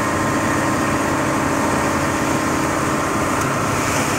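Tube-well drilling rig's engine running steadily under a continuous rushing hiss of muddy water and air spraying out at the wellhead.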